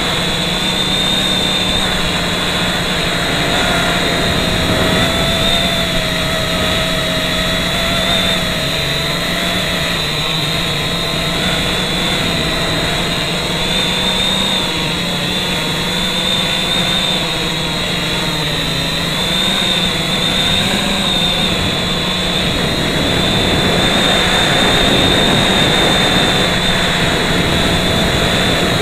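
FPV quadcopter's brushless motors and propellers whining steadily, heard from the camera mounted on the drone itself, the pitch wavering a little with throttle.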